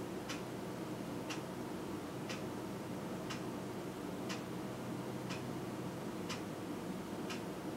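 Clock ticking steadily, about one tick a second, some ticks fainter than others, over a low steady hum.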